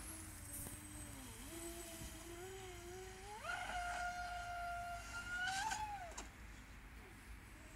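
Radio-controlled model racing boat's motor whining steadily. Its pitch jumps up sharply about three and a half seconds in, holds for about two seconds, then drops away.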